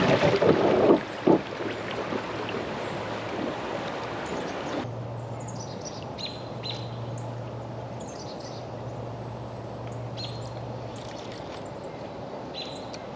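Creek outdoors with water and wind noise at first. After an abrupt change, small birds chirp on and off over a steady low hum.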